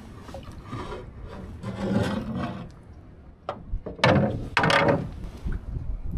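Rubbing and knocking in an aluminium jon boat as a paddle is worked and a shad net is hauled in by hand over the side. There is a sharp knock about three and a half seconds in, and the loudest rasping, from the net being pulled, comes about a second after that.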